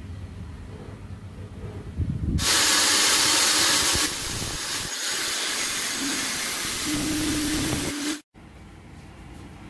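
Electric drill spinning a stainless steel shaft while it is ground down: a loud, harsh grinding hiss with a faint hum starts about two seconds in, eases a little about four seconds in, and cuts off abruptly after about eight seconds.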